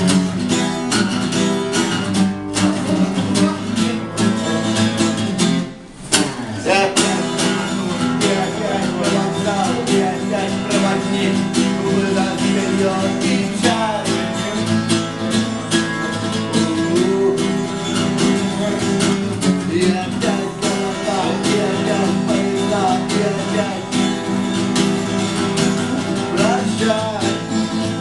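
Live band playing with strummed guitar, breaking off briefly about six seconds in before the music comes back in.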